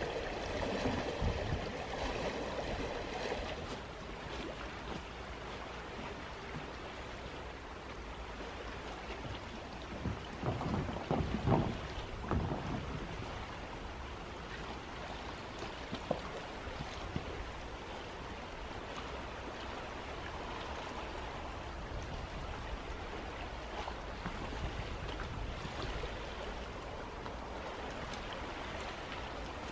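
Steady wash of wind and small waves lapping on a stony loch shore, swelling briefly a few times about ten to twelve seconds in.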